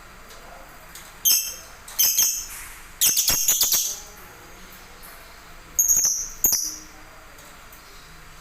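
Caged songbird chirping in five short, high-pitched bursts, the longest about three seconds in.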